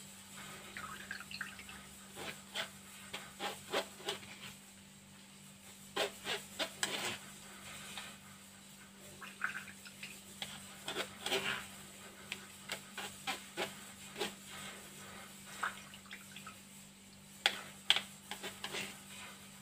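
Grated cucumber being pressed through a plastic sieve to strain out its juice: irregular scraping and tapping on the sieve, with wet liquid sounds.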